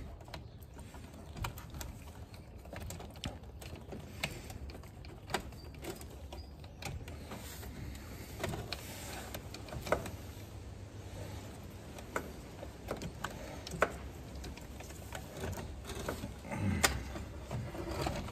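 Scattered clicks and light knocks of hands working plastic wiring clips loose behind a 1968 Ford Mustang's instrument cluster. There are sharper knocks about ten and fourteen seconds in, and more handling clatter near the end as the cluster housing comes free of the dash.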